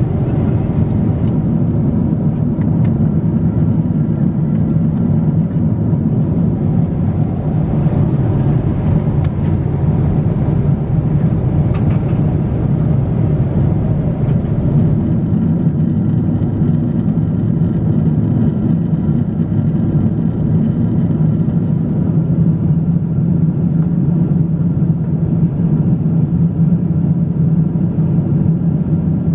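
Steady low rumble of a Boeing 747-8's passenger cabin in cruise flight, a mix of airflow and engine noise, with a few faint clicks in the first few seconds.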